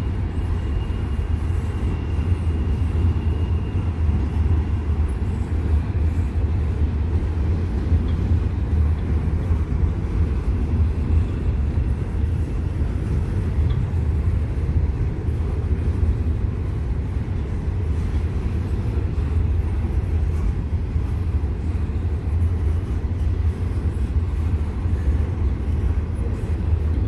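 Freight train rumbling steadily, a deep continuous low drone with no breaks.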